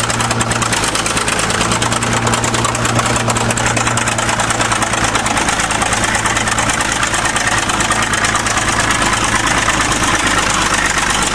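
Diesel engine of a 1953 International TD-20 crawler bulldozer running steadily with a fast, even clatter.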